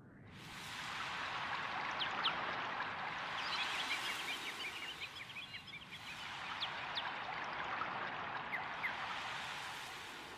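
Wetland nature ambience: a steady rush of flowing water swells in over the first second. Scattered short bird chirps sit over it, with a burst of rapid chirping about three to five seconds in.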